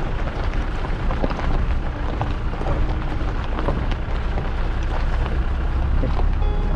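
Wind buffeting an action camera's microphone: a steady low rumble with scattered crackles.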